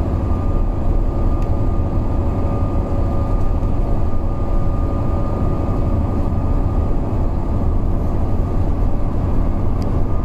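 Alexander Dennis Enviro 400 double-decker bus running steadily: a low drone with a steady, unchanging high whine above it, the wheeze the bus is known for.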